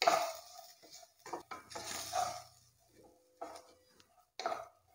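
Wooden spatula stirring moong dal and rice being roasted in ghee, scraping them around the bottom of a stainless steel pressure cooker pot in about five separate strokes with short pauses between, the steel ringing faintly with each one.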